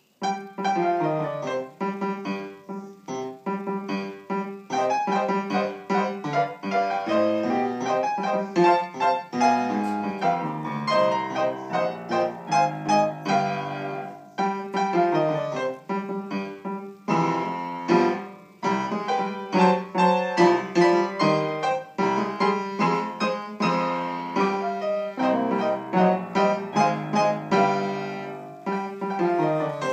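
Piano duet played four hands on one keyboard: a continuous run of notes, with the lower part and the upper part played together. It starts right at the beginning.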